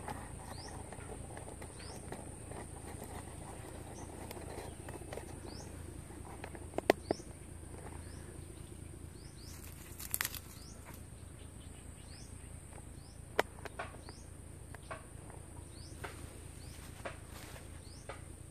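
Outdoor ambience of a steady high-pitched insect drone with short rising chirps repeating every second or so, over a low steady hum. A few sharp clicks or taps stand out, the loudest about seven seconds in.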